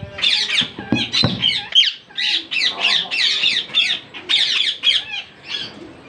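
Indian ringneck parakeets squawking: a rapid run of short, harsh, high calls, several a second, with a few knocks about a second in. It comes as a hand-tame female is biting while being handled, so the calls are agitated.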